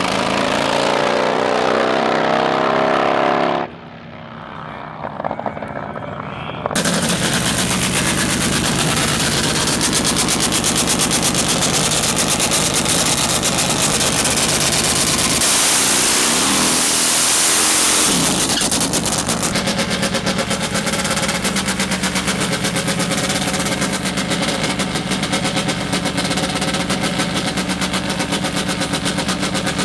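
Nitro-burning Harley-Davidson V-twin drag bike engine running with a loud, rapid staccato. About four seconds in the sound drops away for about three seconds, then the engine returns; it is revved up briefly around the middle and keeps running after that.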